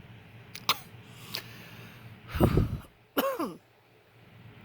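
A man coughing and clearing his throat: a few small clicks, then one loud cough about two and a half seconds in, followed by a short voiced sound that falls in pitch.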